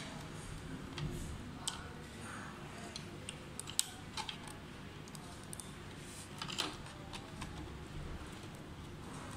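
Irregular light plastic clicks and taps as small wire connectors are pushed into and pulled from the sockets of an appliance's circuit board. The sharpest click comes nearly four seconds in, with a short cluster of them a little later.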